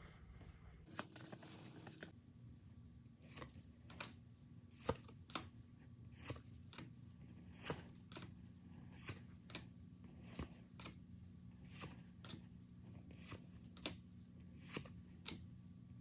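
Faint, irregular clicks and taps, about two a second, from trading card packs and their packaging being handled, over a low steady hum.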